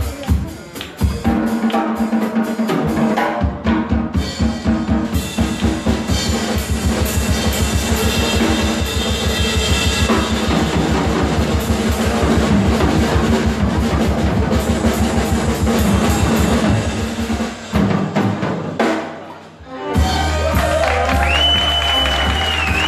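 Live band of drum kit, electric bass, guitar, keyboard, oud and violin playing an Arabic folk song, driven by a fast, steady drum-kit beat. Near the end the band drops out briefly, then a held bass note and a sliding violin line come in.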